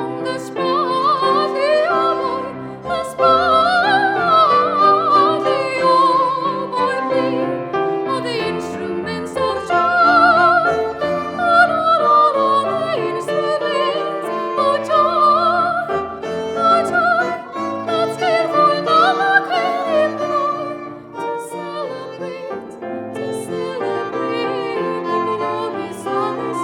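Classical operatic singing with strong vibrato and ornamented melodic runs, over a sustained instrumental accompaniment of strings and keyboard.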